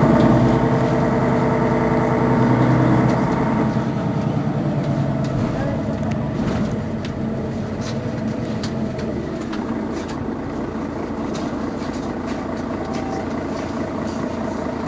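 Mercedes-Benz Citaro Facelift city bus idling while standing still: a steady engine hum with a stack of steady tones that fades about four to five seconds in, leaving a lower, rougher idle with a few faint clicks.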